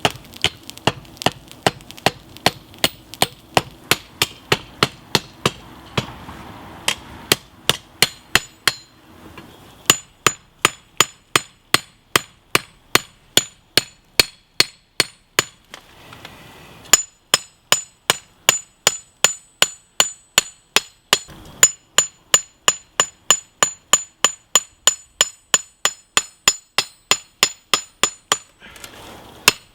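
Hand hammer striking hot steel from a lawn-mower blade on an anvil, forging a knife blade: a steady run of blows, about three a second, with two short pauses and a bright ring on many later strikes. A steady hum sits under the first third.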